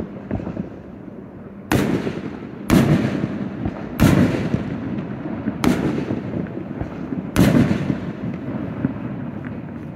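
Aerial fireworks shells bursting: a light crackle, then five sharp booms one to two seconds apart, each trailing off into a rumbling tail.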